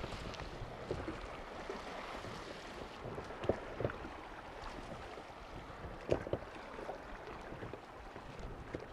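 River water running past a drifting boat, a steady wash with a few short knocks and splashes about a third of the way in and again past the middle.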